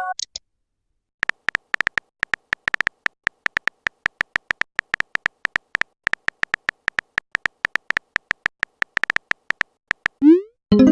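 Phone keyboard typing clicks, rapid and irregular, for about eight seconds as a message is typed. Near the end comes a short rising swoosh, then a message notification chime.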